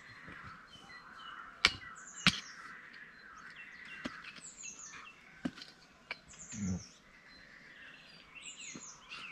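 Two sharp knocks about a second and a half in, then a few fainter ones, from a hand adze (keser) chopping into the soil to earth up tomato plants. Small birds chirp throughout with repeated short falling calls.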